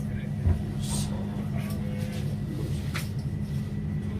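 A single low thump about half a second in, the body's thrust during a chiropractic neck adjustment, over a steady low hum, with a few faint clicks after it.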